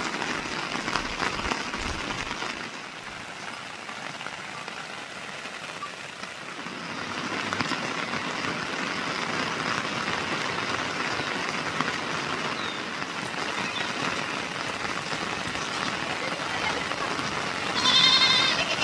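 Heavy rain falling steadily on the ground and surfaces, easing a little for a few seconds and then picking up again. Near the end, a brief call with a wavering pitch cuts through the rain.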